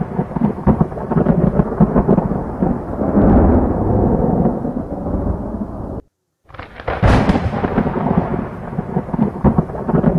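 Thunder sound effect: a long rolling rumble with crackles. It cuts out for a moment about six seconds in, then a fresh sharp crack sets the rumble going again.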